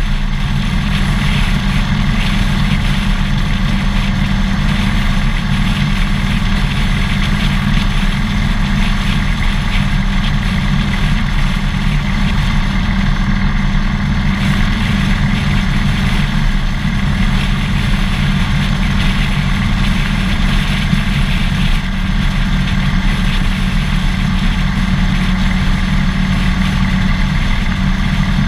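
Harley-Davidson Dyna Fat Bob's V-twin engine running steadily, with no rise or fall in revs.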